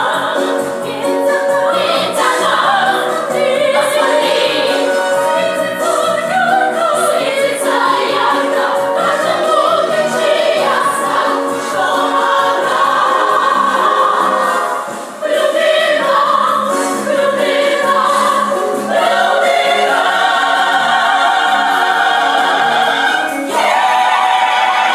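A group of voices singing a song together in chorus over musical accompaniment, with a short break about fifteen seconds in.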